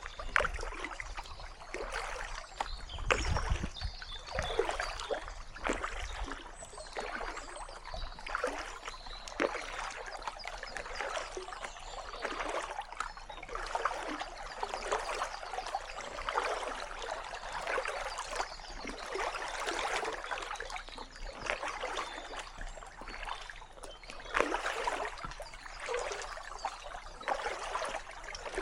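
Kayak paddle strokes in calm water, each blade entry and pull making a splash and trickle, about one stroke every second or so, with water dripping off the blades in between.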